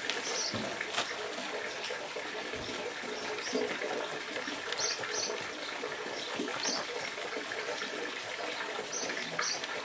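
Steady rush of flowing water from a koi pond's stream, with short high chirps now and then.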